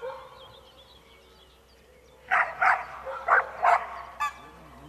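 A dog barking at a decoy in a bite suit: four sharp barks in quick succession starting about two seconds in, then one shorter bark.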